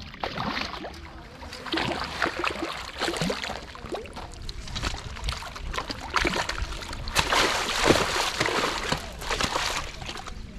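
A hooked tambaqui-type fish thrashing and splashing at the water's surface as it is played in and landed. The splashes come irregularly and are heaviest about seven to nine seconds in.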